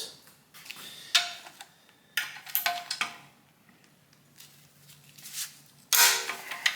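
Hand tools and metal engine parts clinking and clattering, a few separate knocks and clanks with quiet gaps between them, the loudest near the end, as the oil pickup is worked off the underside of the engine block.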